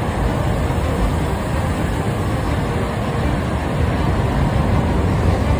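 Strong tornado wind, a loud, steady rushing noise with a heavy, fluctuating low rumble buffeting the microphone.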